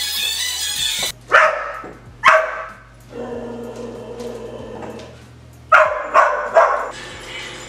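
Pop music cuts off about a second in. Then a dog barks: two barks about a second apart, then three quick barks near the end.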